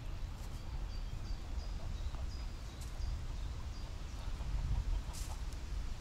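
Geese on a pond calling softly, with a run of short high chirps from a bird and a steady low rumble of wind or water; a brief hiss about five seconds in.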